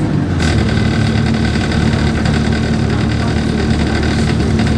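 Engine of an Alexander Dennis Enviro200 single-deck bus running, heard from on board. It is a steady drone whose note changes about half a second in and then holds steady.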